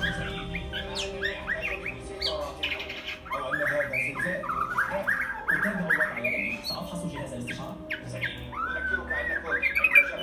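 Caged white-crowned shama singing: a string of short whistled notes that curve upward in pitch, several a second, with a brief pause about three-quarters of the way through.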